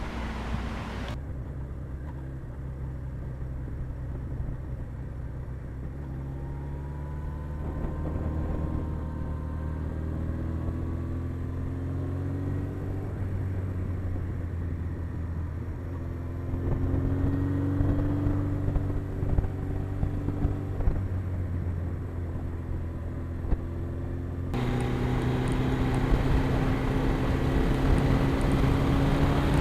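Suzuki GS1100E inline-four engine running under way, its pitch climbing gently in several stretches as the bike pulls. Wind rushes across the microphone at the start and again over the last few seconds.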